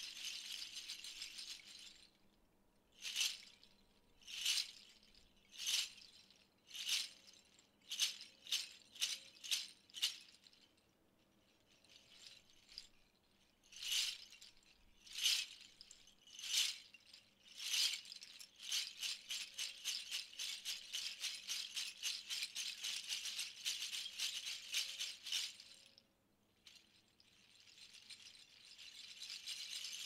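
Homemade rattle of small plastic bottle caps and poker chips strung on a cord, shaken by hand: a bright clatter of plastic on plastic. A run of single shakes and a pause give way to fast continuous shaking, which stops briefly and then builds again near the end.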